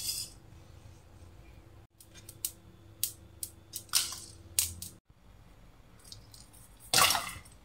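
Whole dry spices dropped into a non-stick frying pan: seeds pattering and small hard pieces clicking sharply on the pan, with a louder rattling clatter near the end.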